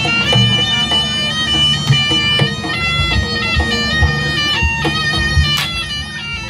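Live Javanese jaranan ensemble music: a slompret (double-reed shawm) plays a melody of long held notes over drums and gamelan percussion.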